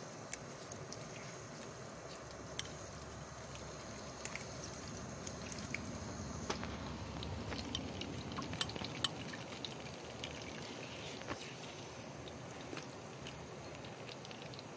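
Kadayıf dolması rolls deep-frying in a pan of hot oil: a steady sizzle with scattered sharp pops and clicks, busiest about halfway through.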